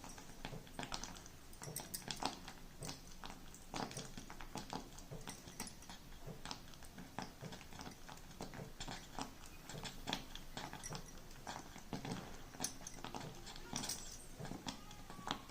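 A spoon stirring and scraping a banana-and-jaggery barfi mixture in a kadhai: irregular soft clicks and scrapes throughout.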